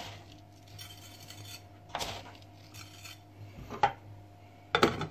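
Salt being shaken into a glass baking dish, with a few short clinks and knocks of glass and metal: a sharp click near four seconds in and another clatter near the end. A faint steady hum runs underneath.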